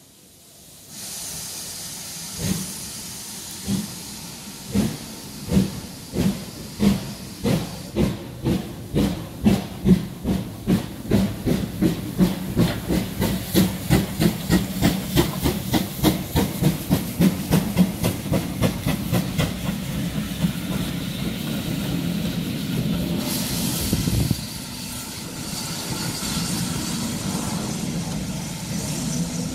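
GWR Small Prairie 2-6-2 tank engine No. 5541 starting away with its train. Its exhaust chuffs begin a couple of seconds in at about one a second and quicken steadily to several a second over a hiss of steam. Later the beats blend into a steady rumble as the coaches roll past.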